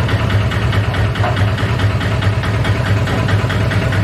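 Petrol dispenser's pump running as fuel flows into a scooter's tank: a steady mechanical hum with a fast, even pulse.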